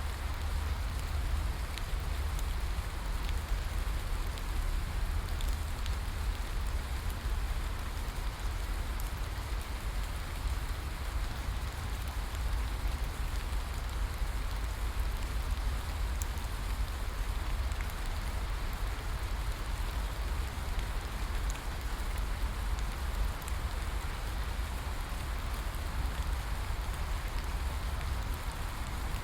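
Steady rainforest rain, an even hiss with scattered drop ticks over a constant low rumble.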